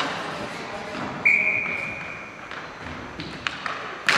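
Referee's whistle blown once, a single steady high tone lasting about a second, with sharp knocks of sticks and ball on the rink before and after it.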